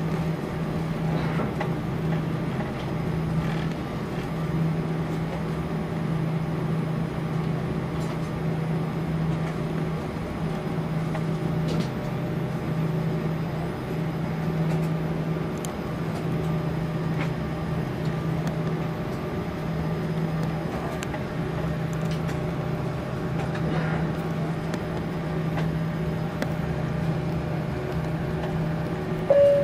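Cabin noise of an Airbus A340-300 taxiing: its four CFM56 engines idling along with the cabin air, a steady low hum that slowly swells and fades. A brief, loud tone sounds right at the end.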